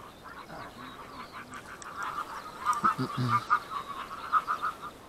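A flock of wild geese calling in flight, many short overlapping honks repeated rapidly throughout.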